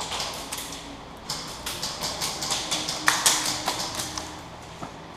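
Airsoft gunfire: an irregular string of sharp clicking shots, several a second, thickest from about a second in until near the end.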